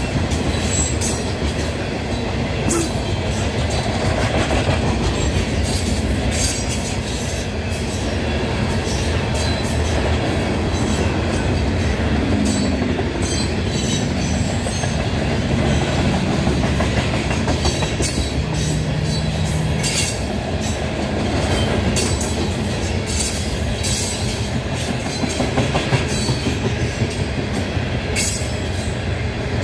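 Loaded coal hopper cars of a freight train rolling past: a steady rumble of steel wheels on rail, with frequent sharp clicks and knocks as wheel sets pass.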